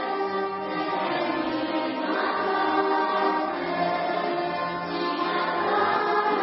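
A children's choir singing a song together, accompanied by a piano accordion.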